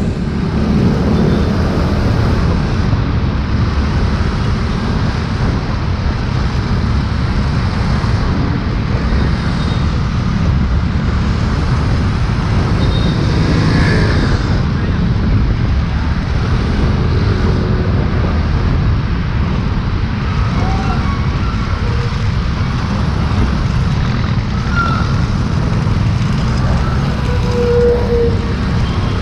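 Motorcycle riding in city traffic: steady engine and road noise with heavy wind rumble on the bike-mounted microphone.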